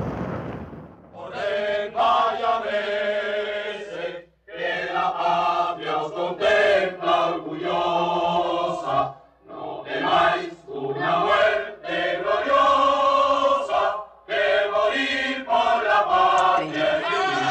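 A choir singing long held phrases, broken every few seconds by short pauses.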